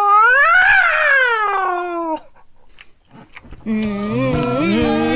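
A man's long, drawn-out vocal cry with a wavering, rising-then-falling pitch, a mock animal cry, lasting about two seconds. After a short pause, a song starts about three and a half seconds in, with music and a sung 'oh-oh-oh' line.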